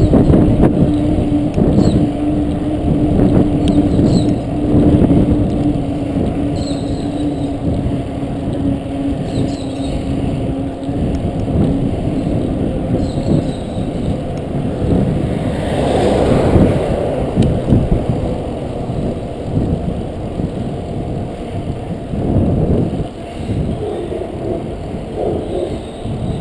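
Wind buffeting a GoPro's microphone while riding a bicycle, with tyre and road noise underneath. A steady low hum fades out about halfway through.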